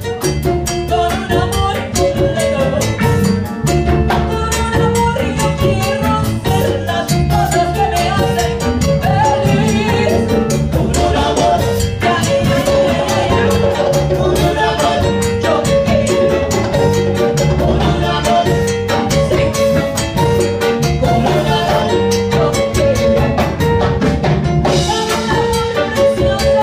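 Salsa band playing live, with drums and percussion keeping a steady rhythm under sustained melodic instrument lines.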